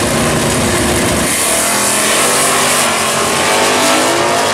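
Two drag-racing cars launching off the starting line and accelerating hard down the strip. A heavy low engine rumble gives way, about a second in, to engines revving up in rising sweeps, one after another.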